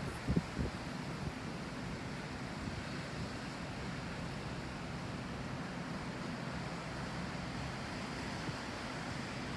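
Wind rushing over the microphone on a beach, with a steady wash of ocean surf beneath it and a brief gust buffeting the mic just after the start.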